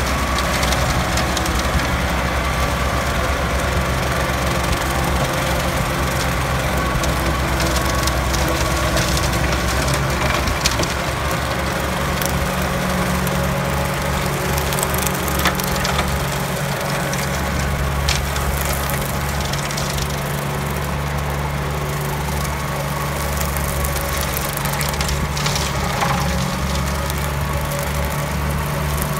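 Kubota tractor's diesel engine running steadily under load while its rear-mounted rotary slasher mower chops through tall grass and weeds, with scattered short cracks and snaps as the blades hit stems.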